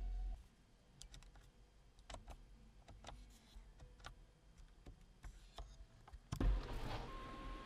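Soft clicks of the overhead console buttons in a 2024 Changan CS75 Plus being pressed, a dozen or so scattered taps. Near the end, a louder thump, then a steady electric motor whine as the sunroof starts to open.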